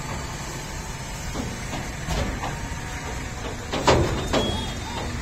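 Passing road traffic (motorbikes and cars) with a steady low rumble, and a brief loud clatter just before four seconds in.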